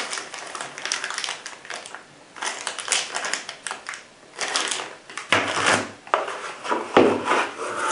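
Clear plastic packaging bag crinkling in irregular bursts as a sealed knife and sheath are handled and turned over, then a cardboard box being handled.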